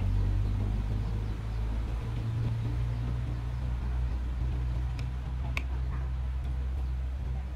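A steady low engine hum, with two faint clicks about five seconds in.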